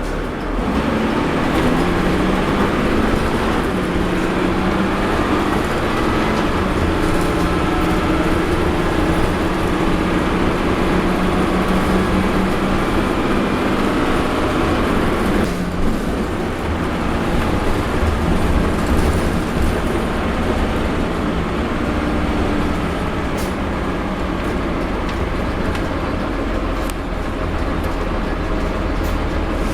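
Dennis Dart bus in motion, its retarder making strange pitched droning noises as the bus slows, with a brief break and change in the tone about halfway through.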